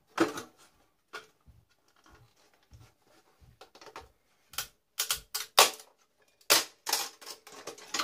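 Irregular clicks, taps and knocks of hard plastic and metal parts being handled while an old tube TV is dismantled for scrap, the loudest a cluster of sharp knocks between about five and seven seconds in.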